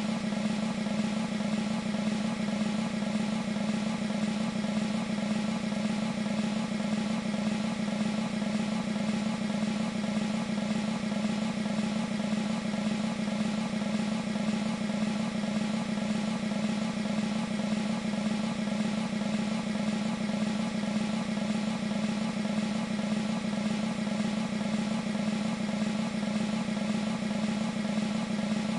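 Sampled military snare drum roll from an E-mu Proteus 2 sound module, held as a steady, continuous roll at an even level.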